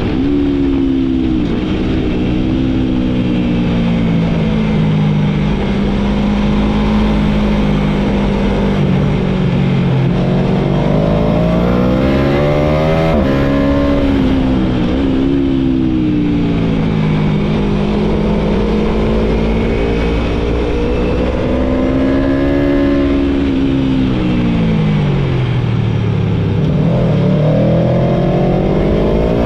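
Aprilia Tuono V4's V4 engine heard from on board the bike, its pitch rising and falling repeatedly as it accelerates and slows. About thirteen seconds in the pitch drops abruptly, as at a gear change. Steady wind rush runs underneath.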